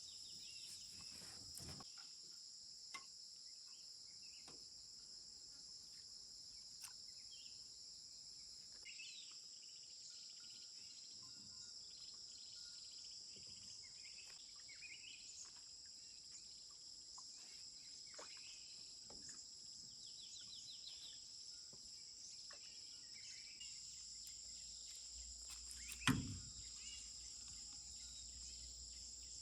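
Steady, high-pitched insect chorus with scattered short bird chirps, and a single sharp thump near the end.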